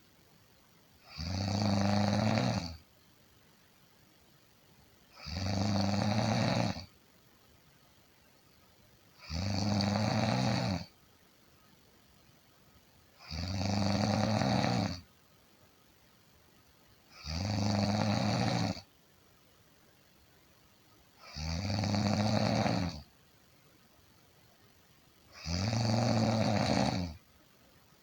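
A person snoring steadily. There are seven even snores, each about a second and a half long, coming every four seconds with quiet breathing gaps between.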